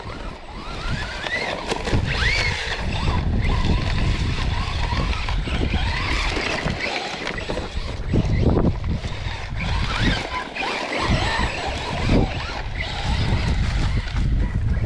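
Arrma Senton 3S RC truck's electric motor whining as it revs up and down in repeated rising and falling sweeps, over a steady low rumble of wind and tyres in sand.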